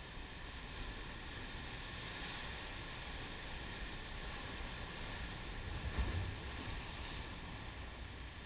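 Ocean surf breaking over rocks and washing back as foam, a steady rush that swells twice. Wind buffets the microphone with a low gust about six seconds in.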